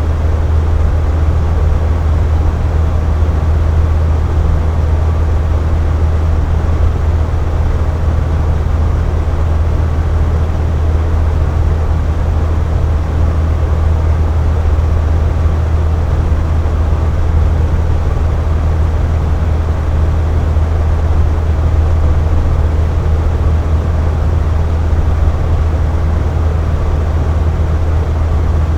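Air conditioner running with a steady, unchanging low hum and an even whoosh of airflow above it.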